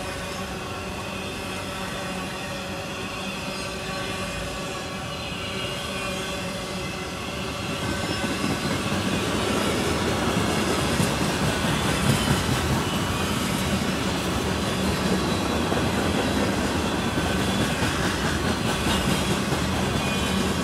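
Freight cars rolling past at close range: steel wheels running on the rails with a steady rumble and clatter. It grows louder about eight seconds in.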